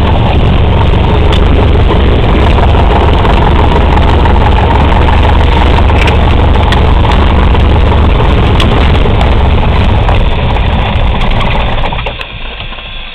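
Single-engine propeller plane's engine running steadily while taxiing, heard from inside the cabin, with a strong low hum; near the end the sound drops off sharply as the engine winds down.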